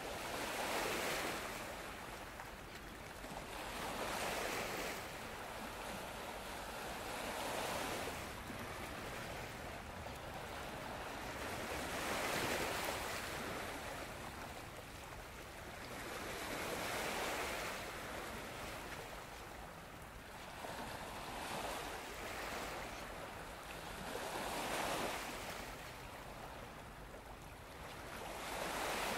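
Waves washing onto the shore, each one a swell of surf noise, about every three to five seconds.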